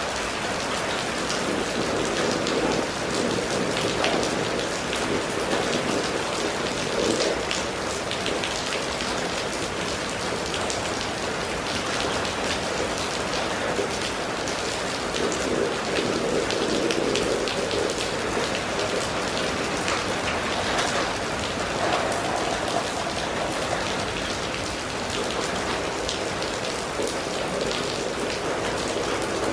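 Steady rain falling on a wet paved street, a dense, even hiss of drops splashing on the puddled road.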